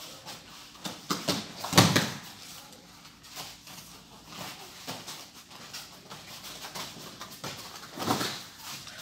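Thuds of aikido throws and breakfalls onto foam mats, with bare feet and cotton uniforms scuffing between them. The loudest thud is about two seconds in and another comes near the end.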